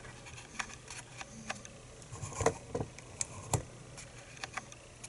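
Small metal clicks and taps as an opened challenge lock and its parts are handled, about a dozen sharp ticks spread irregularly, the loudest a little past the middle.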